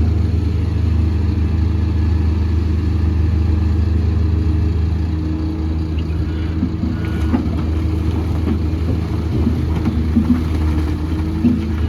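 Heavy diesel engine of construction machinery running steadily under load, with a few short knocks and clanks in the second half.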